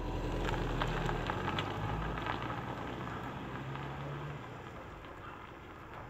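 A car driving away on a rough paved lane: low engine hum under tyre noise with scattered crackles, fading as it goes. The engine hum drops out about four seconds in.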